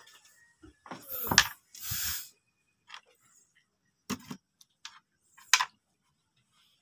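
Freshly caught fish being handled in a perforated plastic crate on wooden boards: scattered short knocks and slaps. The loudest come about a second and a half in and near five and a half seconds, with a brief hiss about two seconds in.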